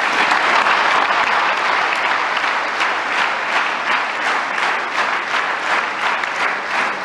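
Audience applauding: many seated guests clapping steadily.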